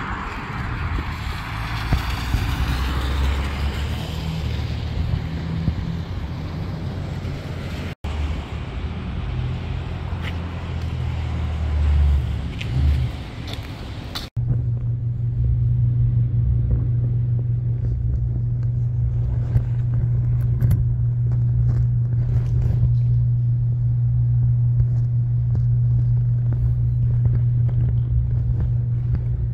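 Outdoor street ambience with low vehicle rumble and a passing car's hiss near the start. After a cut part way through, a steady low hum runs on with faint clicks over it.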